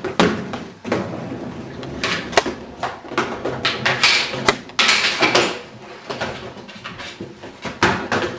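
A small child's roller skates rolling and clattering on a hardwood floor, with a plastic hockey stick knocking and scraping along it: a run of sharp knocks, with longer rolling, scraping stretches about two seconds in and again around four to five seconds in.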